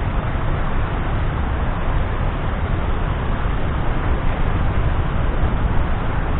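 Steady rush of water pouring over a waterfall, loud and even, heaviest in the low end.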